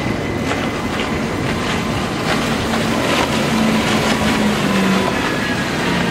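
Bank of high-horsepower outboard motors on a center-console powerboat running at speed, a steady drone over rushing spray, with repeated short slaps as the hull pounds through the chop. The engine note drops a little past the middle.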